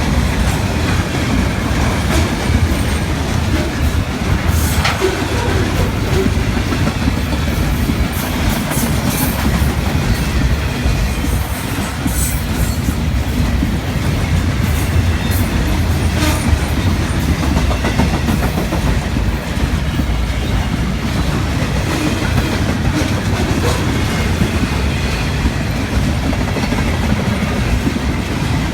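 Norfolk Southern freight train rolling past: a steady, loud rumble of wheels on the rails with scattered clacks, and no horn.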